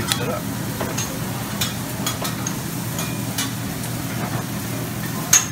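Restaurant buffet room noise, a steady low hum, with scattered light clinks of a metal spoon scraping and tapping in a tray of wasabi.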